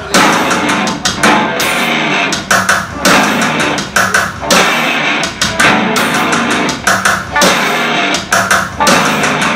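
Live rock band playing loudly: electric guitar and bass guitar over drums, in a dense, repeating riff.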